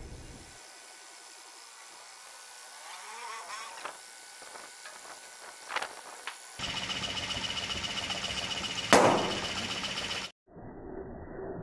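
Homemade DC gear-motor air compressor running steadily as its crank drives the piston pump, inflating a balloon. The balloon bursts with a sharp pop about nine seconds in, and the motor keeps running briefly after before the sound cuts off.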